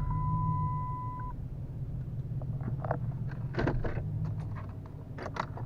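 Dodge Challenger's seatbelt reminder sounding as a steady electronic tone that cuts off about a second in, over the low rumble of the engine running. A few short clicks and knocks from the cabin follow.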